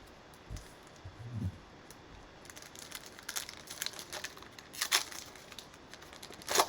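Cellophane wrapper of a trading card cello pack being torn open and crinkled by hand: scattered crackles and rips that grow busier from about halfway in, with the loudest crinkle near the end.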